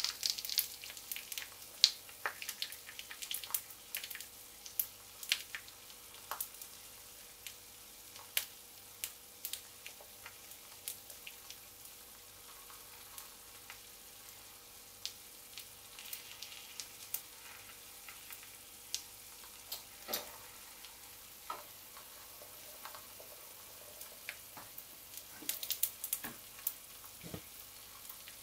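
An egg frying in oil in a small cast-iron skillet: a faint sizzle with irregular crackling pops of spitting fat, thickest in a cluster near the end.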